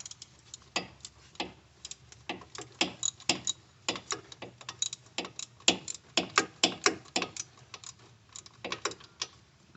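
Ratchet wrench clicking in quick irregular runs as a new wheel hub is tightened in place.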